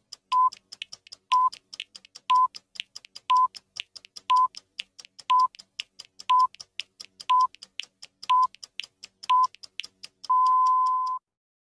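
Old film-leader countdown sound effect: short high beeps, one each second, ten in all, over a fast run of film-projector clicks, ending in one longer beep about ten seconds in that lasts nearly a second.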